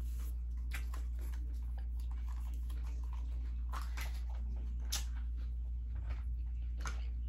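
Close-up eating sounds: chewing and crunching of salad, with a few sharp clicks from utensils and plastic food containers, over a steady low hum.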